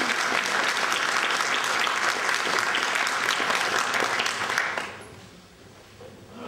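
Audience applauding, the clapping dying away about three-quarters of the way through.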